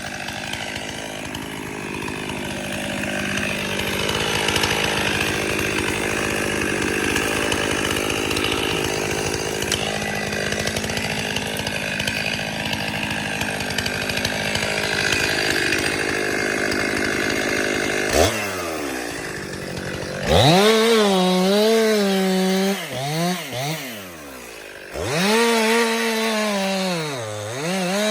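Chainsaw cutting through a tree trunk under load. About two-thirds of the way in the engine pitch drops, then it revs up and down several times with dips in pitch.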